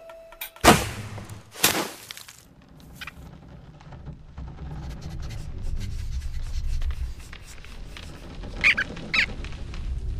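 Cartoon sound effects: two sharp snaps about a second apart, then a steady low rumble, with two short squeaks near the end.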